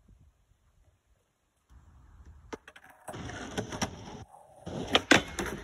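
Skateboard wheels rolling over concrete, then several sharp clacks of the board hitting down about five seconds in.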